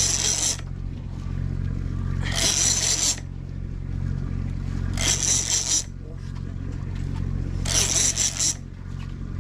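Fishing reel cranked in short rasping bursts about every two and a half seconds while a heavy fish is pumped up from deep water, over the steady hum of a boat engine.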